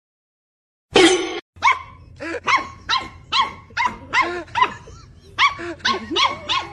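A dog barking in a rapid series, about three barks a second, starting suddenly about a second in.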